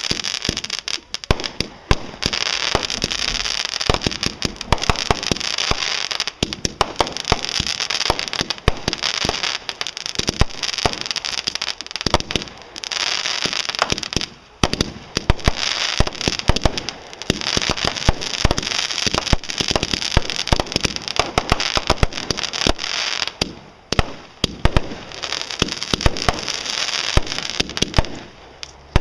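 Fireworks going off in a dense, continuous barrage of rapid crackling pops, with a couple of brief lulls.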